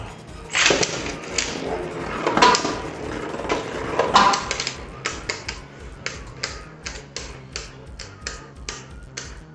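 Beyblade Burst tops clashing in a plastic stadium: three loud ringing clashes in the first four seconds, then quick sharp clacks about three times a second as the tops keep striking each other.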